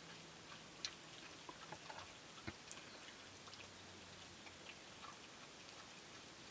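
Faint scattered clicks and smacks of wild boar piglets and a sow feeding with their snouts in a muddy puddle, with two sharper clicks about a second in and about two and a half seconds in.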